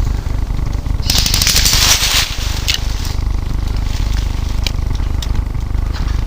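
Steady low rumble of wind and handling noise on a helmet-mounted camera, with a dense burst of rapid crackling about a second in that lasts just over a second, and a few scattered ticks after it.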